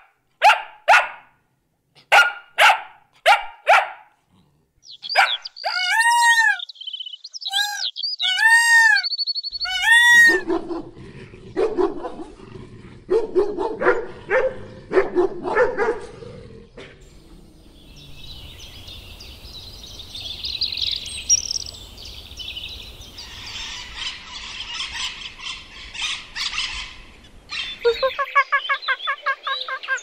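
A small terrier barking, about seven short sharp barks in the first four seconds. They are followed by a changing series of other animal sounds: chirps that rise and fall in pitch, a lower stretch of calls, and pitched squawking calls near the end.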